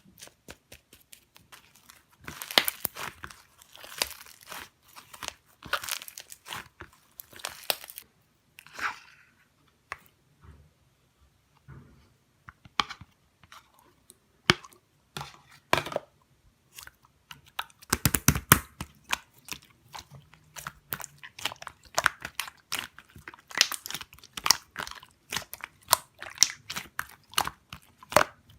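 Slime being squeezed and poked by hand, giving dense, irregular crackling and popping clicks, with a few short lulls and busier, louder handling in the second half.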